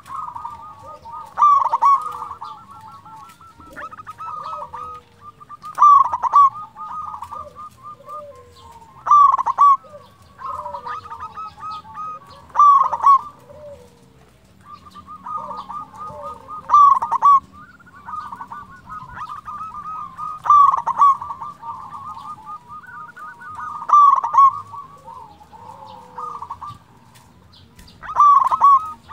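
Zebra dove (perkutut) singing its cooing song: a loud phrase about every three to four seconds, with softer rolling notes between.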